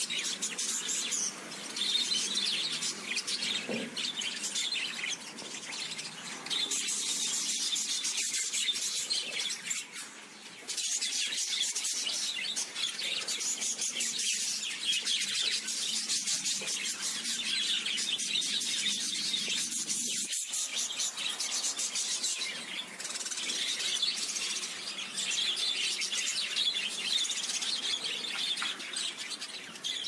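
Budgerigars chattering continuously in quick, high twittering warbles, with a brief lull about ten seconds in.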